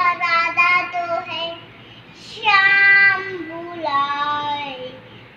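A young girl singing a song in three short phrases of held notes that step up and down, with a breath-like hiss about two seconds in.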